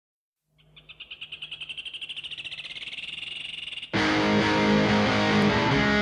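A high, rapid pulsing trill, about ten pulses a second and growing louder, opens a rock recording. About four seconds in, the band comes in suddenly with distorted electric guitar.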